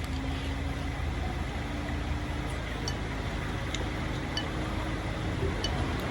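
A steady low engine-like rumble, like a vehicle idling, with a few short light clinks like glass or tableware from about halfway through.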